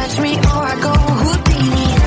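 Electronic dance-pop music with a steady kick-drum beat of about two beats a second under synth lines, with no vocals.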